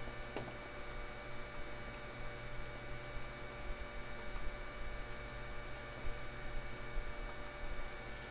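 A few faint computer mouse clicks over a steady electrical hum.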